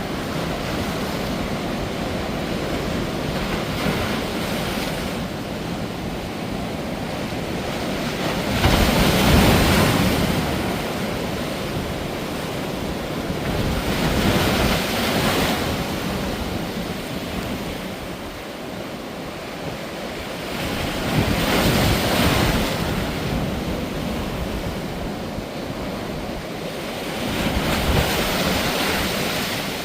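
Sea waves breaking in high surf, a steady wash of surf with four louder breakers swelling up roughly every six to seven seconds, the strongest about nine seconds in.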